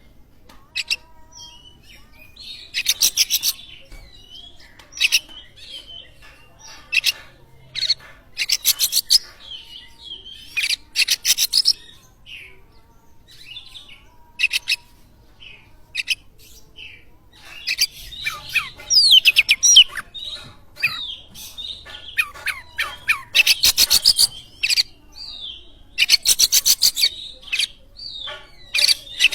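Oriental magpie-robin (kacer) singing in the rapid stuttering 'konslet' style: short bursts of fast buzzy rattles alternating with high whistled notes and glides, a phrase every second or two. A song of the kind played as a lure to set other magpie-robins singing.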